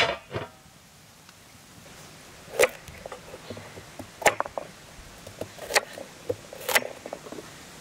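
A metal lid clanks onto a cooking pot at the start. Then a chef's knife chops a carrot on a wooden cutting board: four sharp knocks of the blade on the board, about a second or so apart, with lighter taps between.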